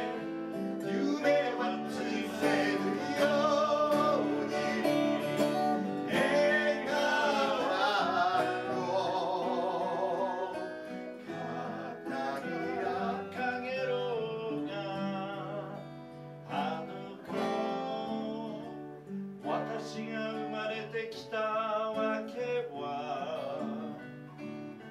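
Two men singing with vibrato over two acoustic guitars, strummed and picked. The song gets gradually quieter toward the end.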